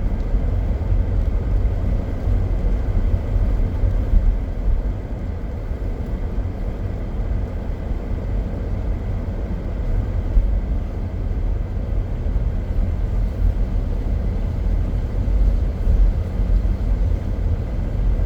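Steady low rumble of a car in motion, heard from inside the cabin: road and engine noise with no distinct events.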